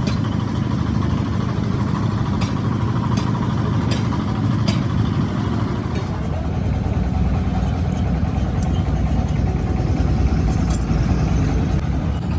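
A steady low engine rumble, like a vehicle idling, with light clicks now and then.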